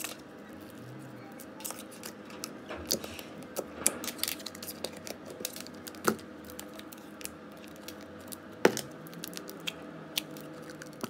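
Plastic slime tubs being handled on a tabletop, with a scatter of small clicks, rustles and crackles and two sharper snaps, as a lid is pulled off a tub of foam-bead slime.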